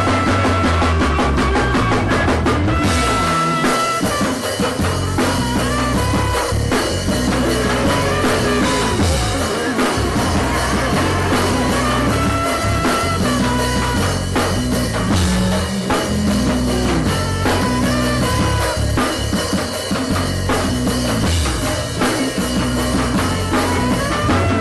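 Band music with a drum kit, bass and guitar playing a steady groove, with quick cymbal ticks over the first few seconds.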